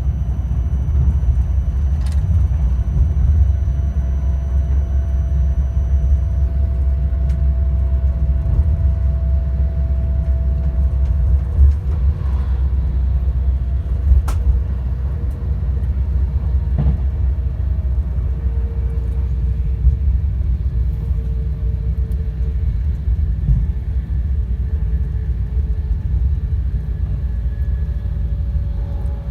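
Alstom Class 390 Pendolino electric train running, heard inside the carriage above the traction motors: a deep, steady rumble of the wheels and running gear, with a faint motor whine that shifts pitch a few times. A few sharp knocks come through, about 2, 12, 14 and 17 seconds in.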